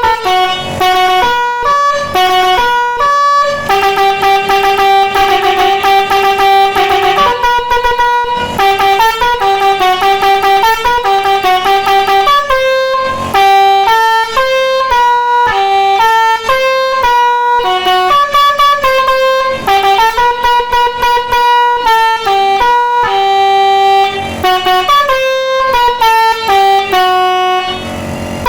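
Telolet bus air horns driven by a multi-tone controller module, playing fast 'basuri'-style horn melodies. The notes come two or three at a time as chords and change several times a second, with a few short breaks between tunes.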